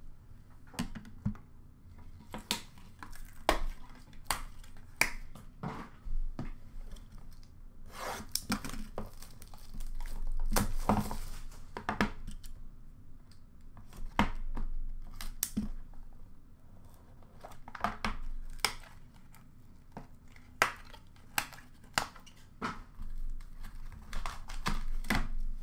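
Cardboard hobby boxes of hockey cards handled and opened by hand: a run of sharp taps and clicks of cardboard and plastic. Several longer scraping stretches come through, the longest about ten seconds in.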